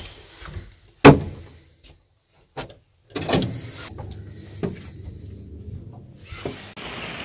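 Lift doors shutting with a sharp bang about a second in, then a few knocks and a low steady hum from the lift car.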